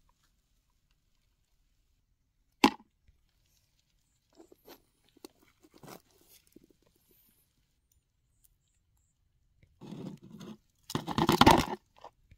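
Scattered rustling and crunching handling noise, with near silence between. A single sharp click comes about a quarter of the way in, and a louder burst of crunching comes near the end.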